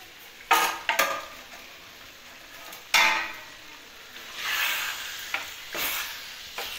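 A metal spoon stirring and scraping a vegetable dish in a wok-style pan on a gas stove, with sharp clanks of metal on metal about half a second in, at a second, and at three seconds. Frying sizzle rises in the second half as the dish heats.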